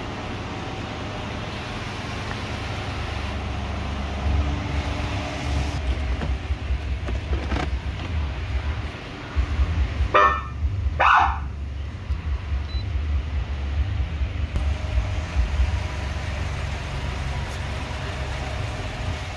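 Two short blasts, less than a second apart, from a Feniex Vanguard 100 W siren speaker, set off from a Feniex Typhoon handheld siren controller. A steady low rumble runs underneath.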